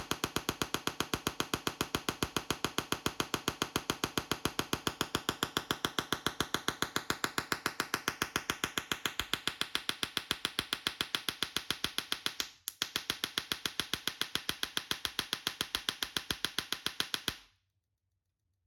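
A Tesla coil firing sparks in a rapid, even train of sharp snaps. It drops out for a moment past the middle, resumes, then cuts off suddenly about a second before the end.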